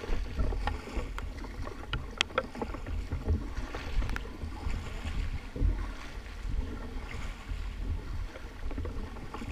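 Double-bladed kayak paddles dipping and splashing in river water as a kayak is paddled along, with a few sharp clicks and low wind rumble on the microphone.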